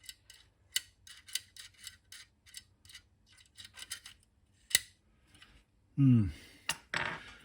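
Light, irregular clicking and ticking of the small metal parts of a 5¼-inch floppy drive's eject mechanism being handled and prodded, with one sharper click a little before five seconds in. A short voice sound and a breath follow near the end.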